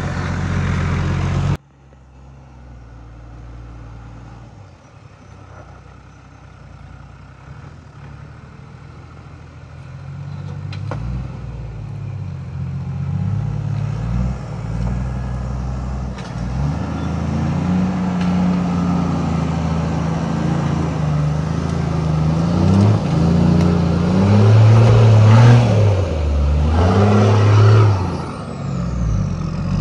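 Toyota LandCruiser 80 series engine working under load as it climbs a steep, rutted creek bank, the revs rising and dipping. Close up for the first moment, it drops away suddenly, then grows steadily louder as the truck comes nearer, loudest near the end as it pulls past.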